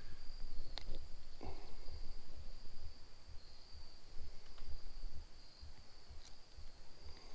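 Steady high-pitched insect chirring, with irregular low rumbles and a few short clicks close to the microphone.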